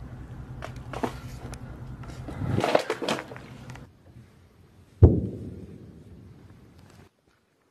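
Handheld on-site field sound over wreckage: a low steady hum with scattered clicks, a louder rustling burst about three seconds in, then a single sharp knock about five seconds in that fades away. The sound cuts off shortly before the end.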